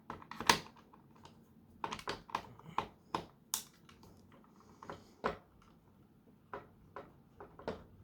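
Irregular light clicks and taps of small plastic parts being handled and pried apart while a Nerf Gatling gun is disassembled.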